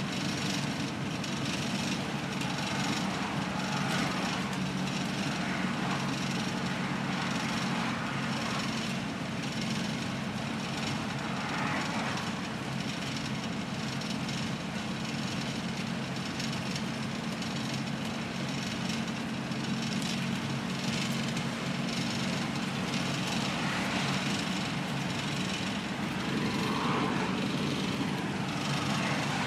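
Green Line Routemaster double-decker bus heard from inside, its diesel engine running steadily at road speed with a constant low drone, road noise, and the body and windows rattling.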